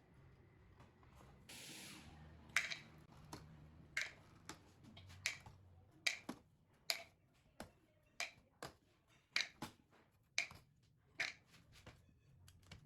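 A short hiss, then a series of sharp clicks or taps from small hard parts being handled, about a dozen of them spaced half a second to a second apart.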